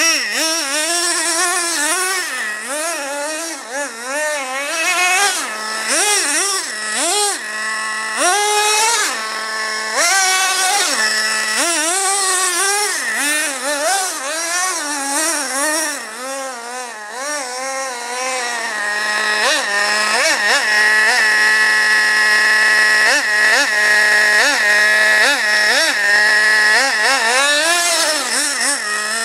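Traxxas Revo RC monster truck's 2.5 cc nitro engine revving up and down in quick bursts as it drives, then holding steadily at high revs over the last third.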